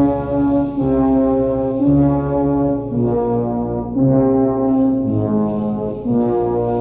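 Music of slow, held brass chords that change about once a second.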